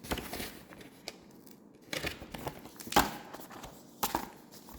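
Paper and card handling of a hardcover comic book and its dust jacket: several short rustles and light knocks, about one a second, the loudest about three seconds in.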